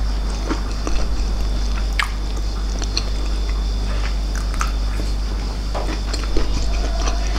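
Someone chewing food, with scattered wet clicks and smacks over a steady low hum.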